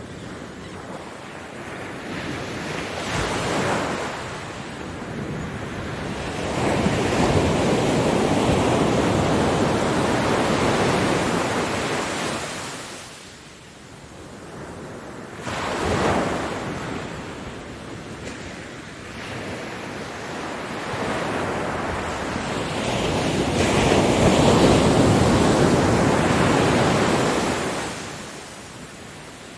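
Ocean surf: waves rush in and wash back in long swells. There is a sudden louder break about halfway through, and a big surge near the end that dies away.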